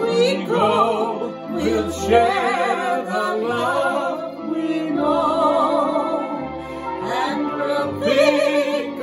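A man and a woman singing a duet, their held notes wavering in a wide vibrato, over an accompaniment of sustained bass notes that change every second or so.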